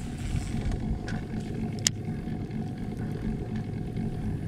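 Bass boat's electric trolling motor running: a steady low rumble with a faint hum, and one sharp click about two seconds in.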